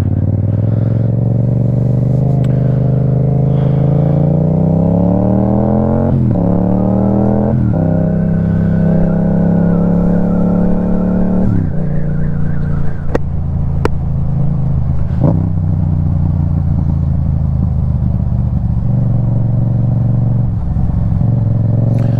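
Yamaha FZ-07's parallel-twin engine pulling away, its pitch climbing through two quick upshifts in the first eight seconds. It holds a steady pitch, then the throttle is rolled off about twelve seconds in, and it runs along at a lower, steady pitch.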